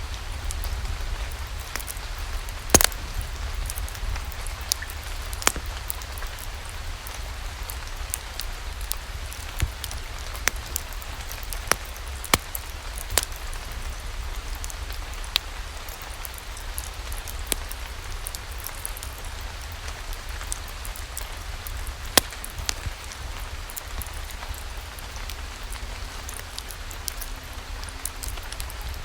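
Steady rain with a low rumble, over which a log fire crackles in scattered sharp pops at irregular intervals.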